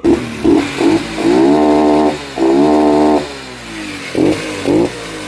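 Shineray 50cc motorcycle engine revved by hand while it breathes through a homemade oil-can air intake on the carburettor. It gives a few quick blips, two held revs of about a second each, then two more short blips before settling back to a low idle.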